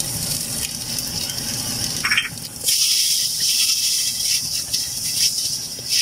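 Chopped tomato, onion and green chillies sizzling in hot olive oil in a clay pot while a wooden spoon stirs and scrapes through them. The sizzle grows louder about two and a half seconds in, just after a brief high squeak.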